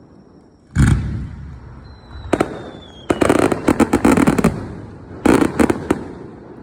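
Aerial fireworks shells bursting. A deep boom comes about a second in, then a sharp bang, then two rapid runs of crackling reports, one in the middle and one near the end.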